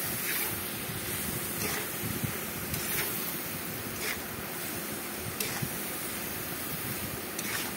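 Metal spatula stirring and scraping mahua fruits and sesame paste around a metal kadai, with a short scrape about every second or so over a steady hiss.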